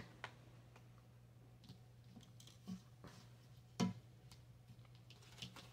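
Quiet handling of paper money and a printed sheet on a tabletop: a few soft taps and rustles, the loudest about four seconds in, over a low steady hum.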